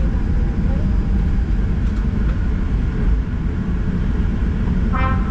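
Steady low rumble inside a jet airliner's cabin as the plane rolls along the ground after landing. Music comes in near the end.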